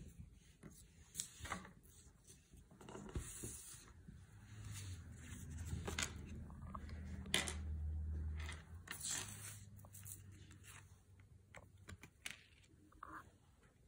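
Pokémon trading cards being handled and laid one by one on a wooden table: short slides and light taps of card stock, scattered through. A low hum swells up through the middle and fades again.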